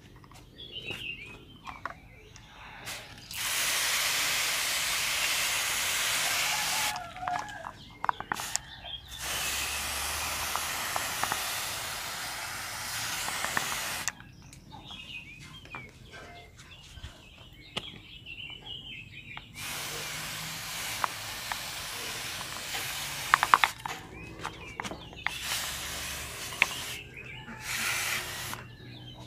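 Hand sprayer hissing out a fungicide mist onto grape leaves in four long bursts of a few seconds each, which start and stop sharply. This is a treatment of leaf rust, sprayed on the undersides of the leaves.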